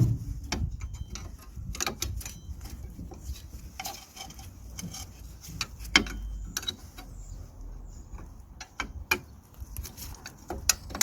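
Irregular metallic clicks and clinks of rear drum brake shoe hardware being worked by hand and tool: the shoe hold-down clips and return springs, with a sharper knock about six seconds in.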